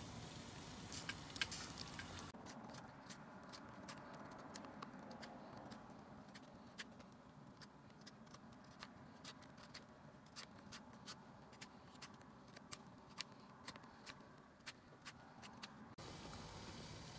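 Wood fire crackling faintly: irregular small sharp pops, one to three a second, over a low background hum of the fire.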